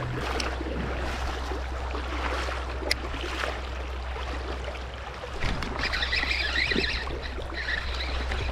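River water flowing steadily. A single click comes about three seconds in, and a higher-pitched sound joins from about five and a half seconds in.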